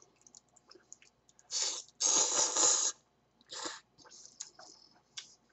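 A person slurping ramen noodles off chopsticks: a short slurp, then a longer, louder one, and a brief third, with small mouth clicks and chewing between them.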